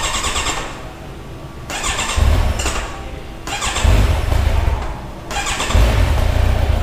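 A brand-new 2022 Kawasaki Ninja 1000SX's inline-four engine being cold-started, hard to start: the electric starter cranks in several short spells, and the engine fires briefly and dies twice. It catches near the end and keeps running at a high cold idle.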